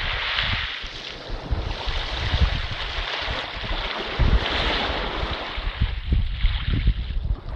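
Small waves breaking and washing up over a pebble beach, swelling a few times as each wave runs in. Wind buffets the microphone with a low rumble.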